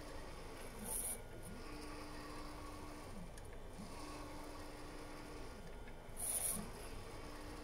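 3D printer's stepper motors whining as the print head travels: each move rises in pitch, holds a steady tone for about a second and a half, then falls as it slows, repeating about every two seconds. A brief high hiss comes twice, about a second in and again about six seconds in.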